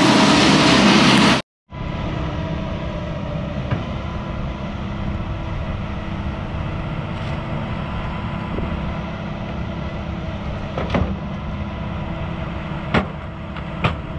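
A loud rushing noise cuts off about a second and a half in. After it, a Hyundai excavator's diesel engine runs steadily, with a few sharp knocks near the end.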